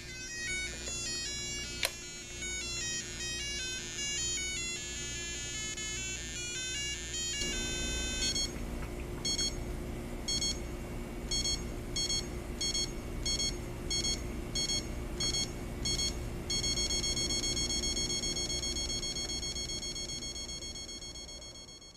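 Equity 31302 digital travel alarm clock's electronic beeper playing a short high-pitched beeped tune, then its ascending alarm: groups of beeps coming closer together, changing about sixteen seconds in to continuous rapid beeping that fades out at the end.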